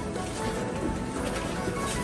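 Quiet background music with soft, steady tones.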